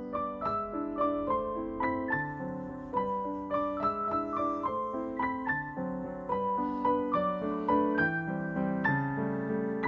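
Background piano music: a gentle melody of evenly paced single notes over held lower notes.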